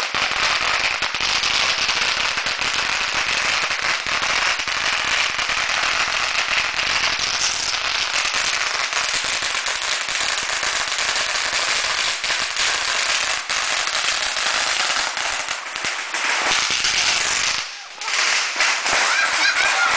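A ground firework going off in a dense, continuous crackle of rapid small bangs, steady in level, which stops abruptly near the end. Scattered pops and voices follow.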